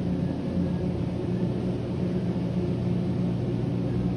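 Supermarket background: a steady low mechanical hum with a few held tones, from the open refrigerated meat display cases running.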